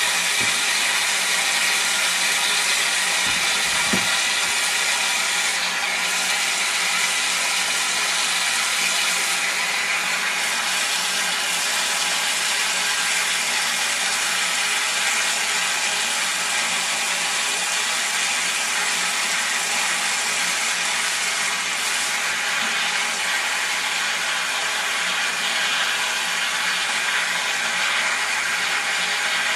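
Kitchen faucet running steadily into a sudsy sink, the stream splashing over hands squeezing out a foam element.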